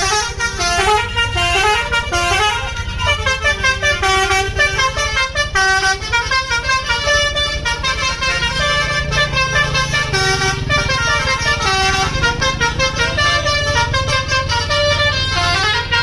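A bus's Basuri V3 telolet horn, a multi-trumpet musical horn, plays a fast stepping melody of several tones at once without a break. The bus's engine runs underneath.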